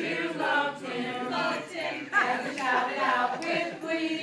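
A small group of carollers singing a Christmas carol together, unaccompanied.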